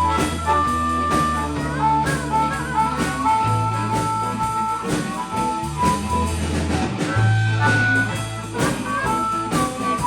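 Blues band playing an instrumental stretch of a shuffle: a repeating bass line under held, bending lead notes.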